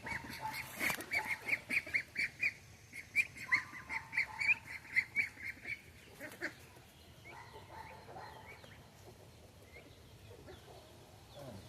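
Ducks calling in a fast run of short, repeated calls, about four or five a second, that thins out after about six seconds into fainter, scattered calls.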